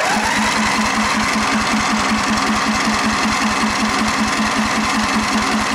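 John Deere Sabre riding mower's engine being cranked by its electric starter without catching, a steady rhythmic chugging of about seven beats a second that starts and stops abruptly. The engine turns over but will not fire, which the owner suspects is flooding.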